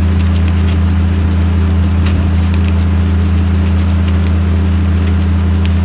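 A steady, loud low engine drone, with the burning wooden buildings crackling and snapping in many short, sharp pops over it.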